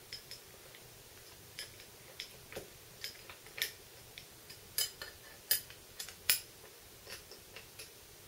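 Irregular sharp metallic clicks and clinks of an Allen key against the bolts and casting of a G0704 mill's Z slide, as the nut-holder bolts are snugged up just enough not to slop around. The loudest clinks come a little past the middle.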